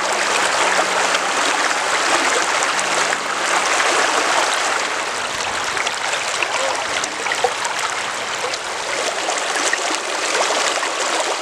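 Shallow river rushing and splashing over rocks and stones, a steady, even rush of water.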